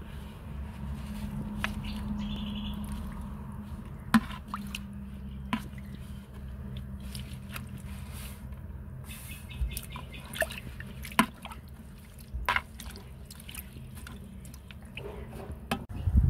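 Homemade banana-shoot microbial starter (dark fermented liquid with chopped banana-shoot pieces) being stirred in a plastic bucket with a plastic fork, the liquid sloshing and dripping, with occasional sharp clicks.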